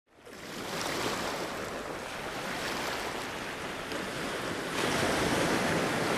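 Ocean surf breaking on a sandy beach: a steady rushing wash of waves that fades in at the start and gets louder a little before five seconds in.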